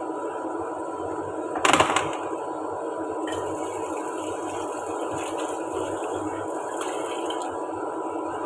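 Kitchen tap water running into a sink while dishes are washed by hand, with a loud clatter of dishes about two seconds in and a few lighter knocks of crockery after.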